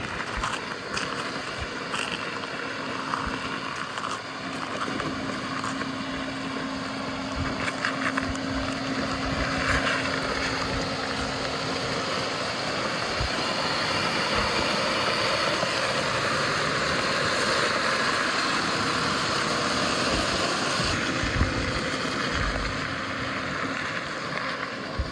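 Jeep Wrangler Rubicon X driving on a rough trail: a steady roar of engine and tyre noise, with scattered low knocks and bumps. It grows louder about halfway through.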